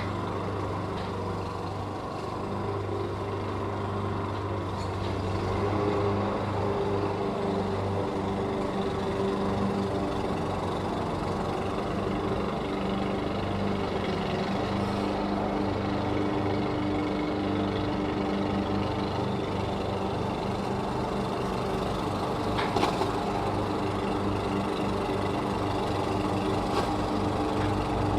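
Lawn mower engine running steadily, its pitch and level shifting slightly a few times as the load changes, with one brief sharp click about three-quarters of the way through.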